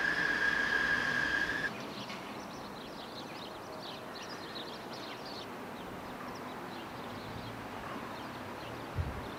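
Outdoor street ambience. A steady high-pitched squeal cuts off abruptly about a second and a half in, then a quieter background with faint, quick bird chirps.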